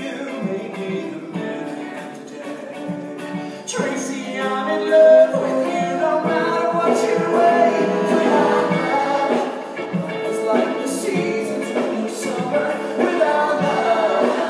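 Live stage-musical number: a singer with a theatre pit band, the band growing louder about four seconds in.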